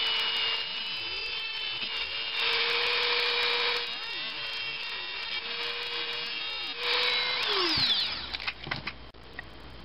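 Small high-speed rotary tool with an abrasive wheel whining steadily while the steel tip of a nail, held in pliers, is ground against it, the grinding hiss rising in two louder stretches. About eight seconds in the motor winds down, falling in pitch, and a few light clicks follow.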